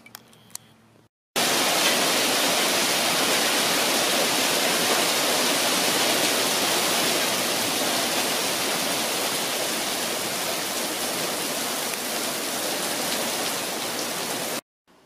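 Hailstorm: hailstones pelting an asphalt driveway and lawn in a dense, even hiss. It starts abruptly about a second and a half in and cuts off just before the end.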